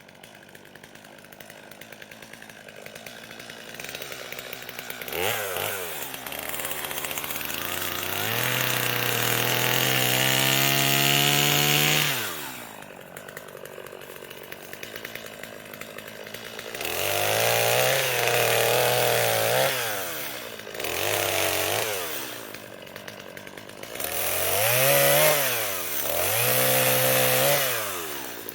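Chainsaw idling between repeated bursts of throttle while cutting brush. It is revved up about five times, the longest for about four seconds, and each time drops back to idle.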